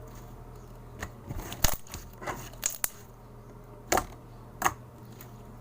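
Thick slime being squeezed and pressed by hand, giving a string of irregular sharp clicks and pops.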